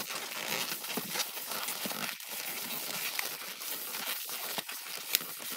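Latex modelling balloons rubbing and squeaking against each other as a long light-green balloon is twisted and wrapped around a balloon sculpture: a continuous crinkly rubbing with small clicks and a few short squeaks.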